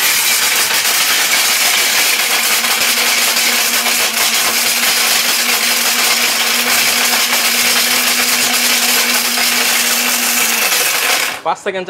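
Electric mixer-grinder with a stainless-steel jar running at full speed, grinding whole dried turmeric into powder: a loud, steady whir with a steady hum. It is switched off near the end, and the hum falls in pitch as the motor winds down.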